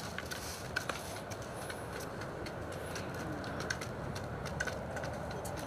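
Hens pecking grain from plastic feeding dishes: irregular light clicks and taps, several a second, over a steady low background noise.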